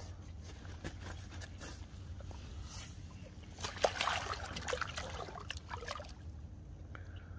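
Lake water splashing and sloshing in and around a landing net that holds a freshly netted carp, as the net is handled in the margin. The splashing is heaviest about four seconds in and dies down near the end.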